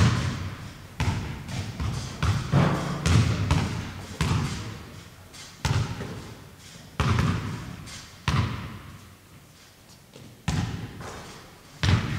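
A series of heavy thuds at uneven spacing, about one every one to two seconds, each striking sharply and ringing out for about a second.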